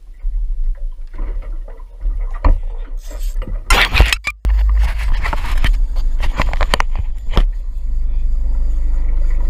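Boat-mounted action camera being bumped on its mount: a run of sharp knocks and scrapes against the housing, loudest about three to four and a half seconds in, over a steady low rumble that evens out near the end.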